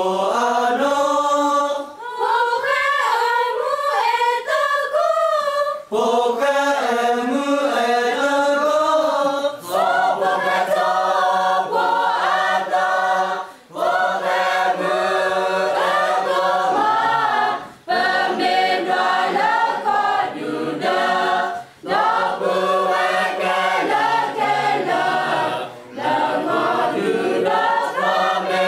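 A choir singing in phrases about four seconds long, with a brief break between each.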